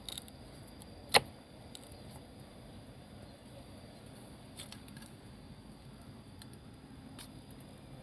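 Irregular sharp knocks of a blade chipping into a tree trunk while a hole is widened: one loud strike about a second in, and a few lighter taps later.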